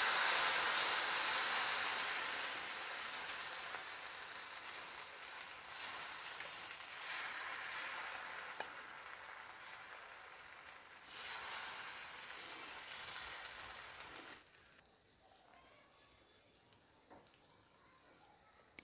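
Thin rava dosa batter sizzling on a hot nonstick tawa as it is ladled on. The sizzle fades gradually, swells briefly twice as more batter goes on, and cuts off about fourteen seconds in.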